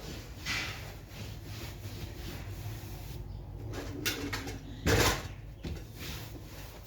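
Cloth rubbing across a dining table, with a sharp knock about five seconds in and a lighter knock a second before it.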